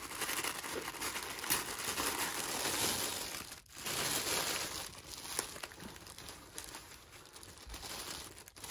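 Tissue paper crinkling and rustling as it is unwrapped by hand. It is busiest for the first three and a half seconds, then after a brief pause the rustling is softer.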